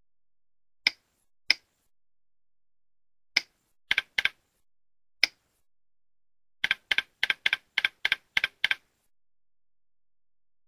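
Sharp clicks from a computer mouse and keyboard: a few single clicks and a quick pair, then a run of about nine clicks at roughly four a second.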